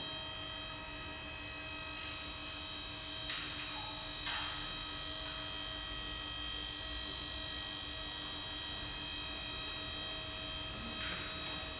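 A steady electrical hum with a stack of overtones, unchanging throughout, with a couple of light clicks about three and four seconds in.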